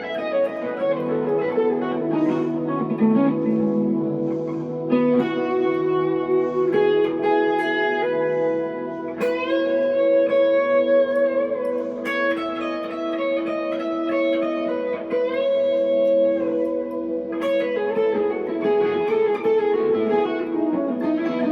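Electric guitar, a 1963 Fender Telecaster played through a Glaswerks Zingaro tube amp: slow chords and single notes, a new one struck every few seconds, each ringing on and overlapping the next.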